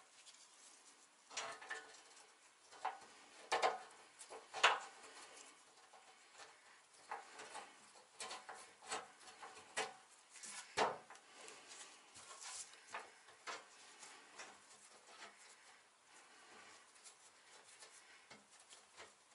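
Hands fitting an oil pan and threading its bolts from under a truck: scattered small metal clicks, taps and scrapes, with a few sharper knocks among them.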